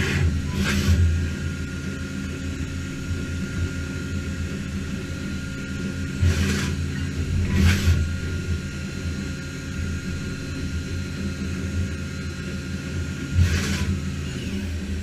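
A Matsuura MAM72-35V 5-axis CNC machining center running with a steady low hum and a thin steady whine. Five short hissing bursts come through it: two near the start, two around the middle and one near the end.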